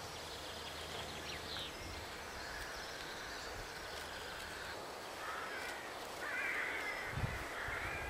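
A crow cawing several times in the second half, over faint outdoor background with small birds calling thinly earlier on.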